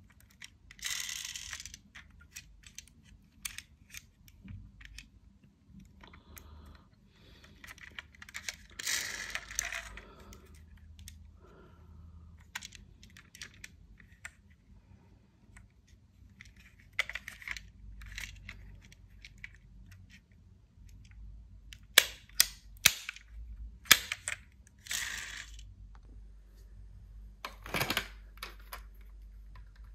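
Diecast toy cars being handled in a toy box: scattered clicks and clacks with short scraping rustles, and a few sharp knocks about two-thirds of the way in.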